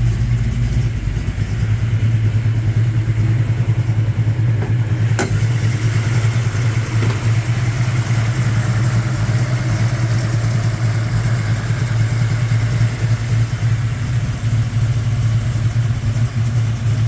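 A 350 V8 running steadily at idle, with one sharp click about five seconds in.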